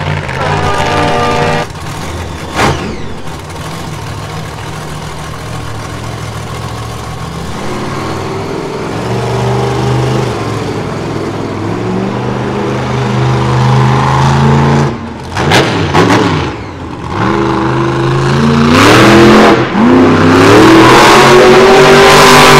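Monster truck engine running hard, its pitch climbing and falling with the throttle, broken by several quick throttle lifts and re-openings. It is loudest in the last few seconds.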